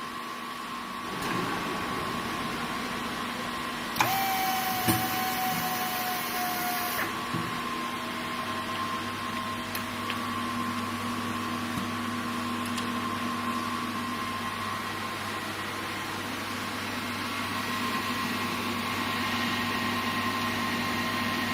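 Machinery of a cobot welding station running with a steady hum. About four seconds in there is a sharp click, then a motor whine that falls slightly in pitch for about three seconds, with a second knock soon after.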